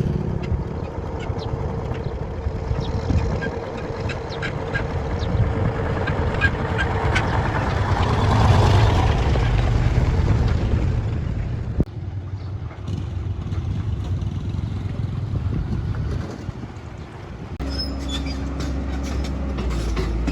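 Diesel engine of a bulldozer running steadily, with ducks quacking over it. The sound changes abruptly about twelve seconds in and again near the end.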